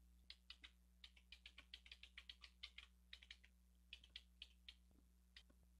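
Typing on a computer keyboard: quiet, irregular key clicks, a few per second with short pauses, as text and numbers are entered into a spreadsheet, over a faint low steady hum.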